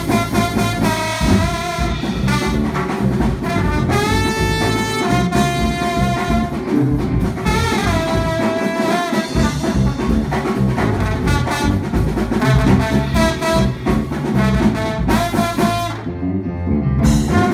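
Small jazz combo playing live: trombone and saxophones carrying held melody notes over electric bass and drum kit.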